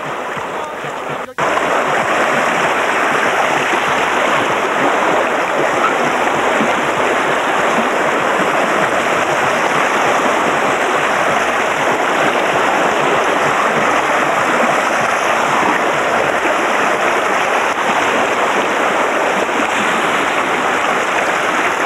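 River water rushing over shallow stony rapids around a bamboo raft, a steady loud rush. It cuts out briefly about a second in, then comes back louder.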